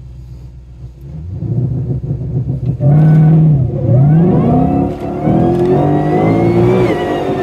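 Supercharged Ford Mustang V8 heard from inside the cabin, held at launch revs and then launching hard at full throttle in first gear. The engine note dips and recovers twice after the launch, then climbs steadily, with a high supercharger whine rising along with it.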